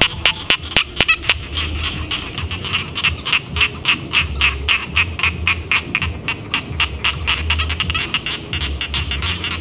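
Chorus of rice-paddy frogs croaking, a fast run of short, sharp calls about five or six a second, with a low rumble underneath.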